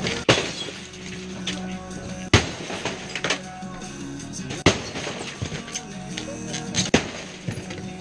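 Four heavy strikes about two seconds apart as a long-handled smashing tool is swung down onto objects, with glass breaking and debris clattering between the blows, over background music.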